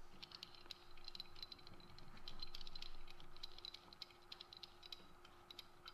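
Faint, irregular clicking and rattling of an 18-inch pipe wrench's jaws on the radiator return pipe as it is set and shifted on the pipe, busiest in the middle.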